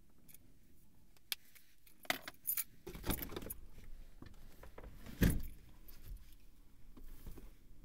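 Handling noises of someone moving about in a car seat: scattered clicks and rustling with a jingling rattle, and one loud thump about five seconds in.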